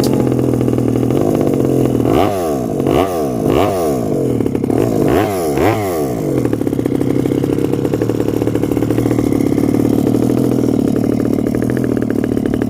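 RC car motor running, its pitch swooping down and back up about five times in quick succession in the first half, then holding a steady pitch.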